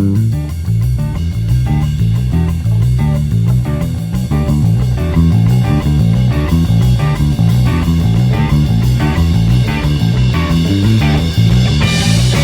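Sire V7 five-string electric bass playing a busy line of quickly changing low notes along with a psychedelic rock song's recording, with drums; a cymbal crash near the end.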